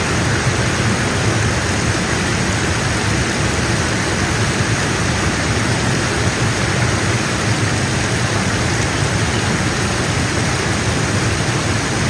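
Steady rush of falling water from a waterfall, an even, unbroken noise.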